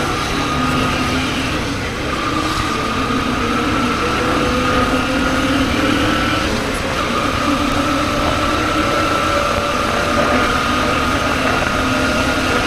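Motorcycle engine running under way, its pitch climbing slowly and dropping back twice, a couple of seconds in and about halfway, as with upshifts, over steady road and wind noise.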